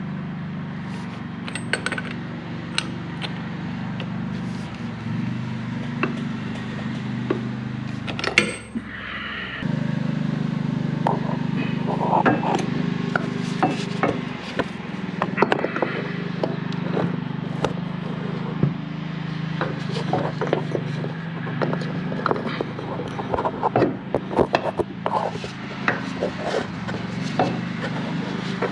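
Hand-tool work: irregular clicks, knocks and scrapes over a steady low hum, with a short break about eight seconds in.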